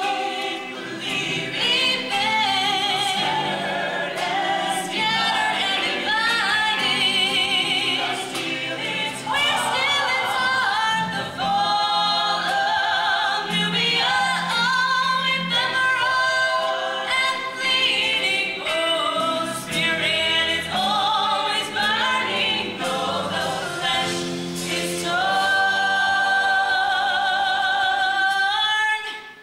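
High school show choir of mixed voices singing a slow number in harmony, voices with vibrato, ending on a long held chord near the end.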